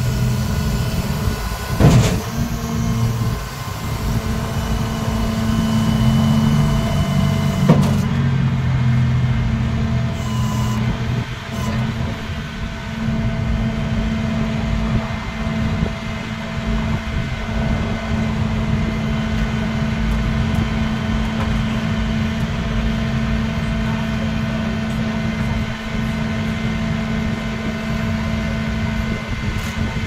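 Flatbed tow truck's engine idling steadily, with a sharp metallic clank about two seconds in and another near eight seconds while a car is tied down on its bed.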